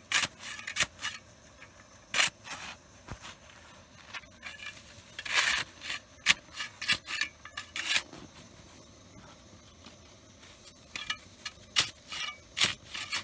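Snow shovel digging into packed snow: the blade scraping and crunching in irregular strokes as snow is cut and lifted out, with a pause of a couple of seconds after the middle before the strokes start again.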